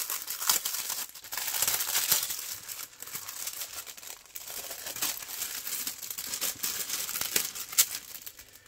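Clear plastic packaging crinkling and crackling as a bag is opened and its contents are slid out and handled. It is loudest between about one and two and a half seconds in, with scattered sharp crackles after that.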